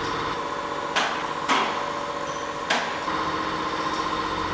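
Repair-shop noise: three sharp knocks, about a second in, half a second later and again near three seconds, over a steady machinery hum.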